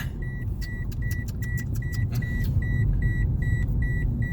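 A car's warning chime beeping steadily, a short high tone about two to three times a second, over the low rumble of the idling engine, with a few scattered clicks of handling inside the cabin.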